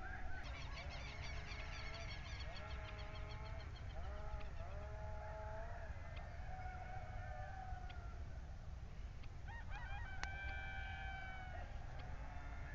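Distant animal calls: many overlapping pitched calls that rise and fall, with a quick chattering series in the first few seconds and another cluster about ten seconds in, over a low steady rumble.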